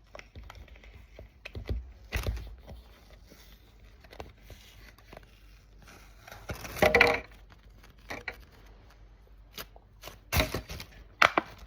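Plastic packaging being torn open and handled while a squishy toy is unwrapped: scattered rustles, small clicks and knocks, with a louder burst of handling a little after the middle and two sharp knocks near the end.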